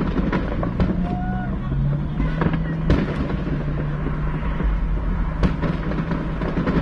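Aerial fireworks going off in irregular bangs and pops, the loudest about three and five and a half seconds in, over a steady low hum.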